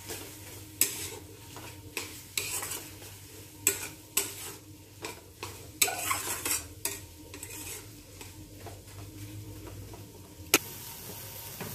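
Spatula scraping and knocking against a metal kadai as a vegetable filling is stirred, over a light sizzle of the frying food. The strokes come thick and irregular for the first seven seconds, then thin out, with one sharp knock near the end.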